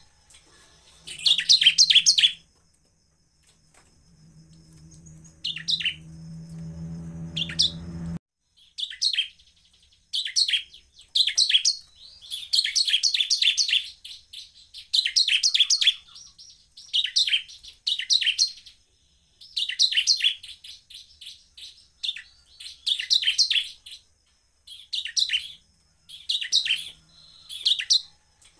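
Bar-winged prinia (ciblek) singing: repeated bursts of rapid, high-pitched trilled notes, each about a second long, with short pauses between them. A low hum swells between about four and eight seconds in, then cuts off suddenly.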